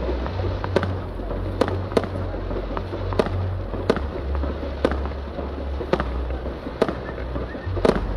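Fireworks display: shells bursting in a steady series, about one sharp bang a second.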